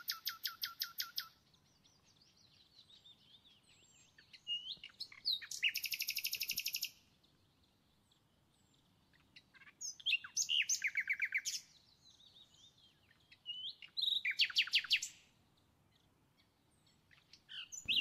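A small songbird singing, with four phrases of fast, even trills a few seconds apart and short chirps between them.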